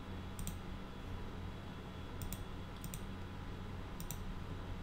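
Computer mouse clicking: a handful of short, sharp clicks, mostly in quick pairs, over a steady low hum.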